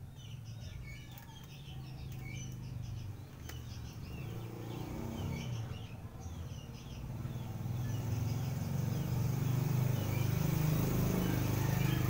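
Small birds chirping rapidly in the background, thinning out about halfway, while a low engine rumble grows louder over the second half and becomes the loudest sound.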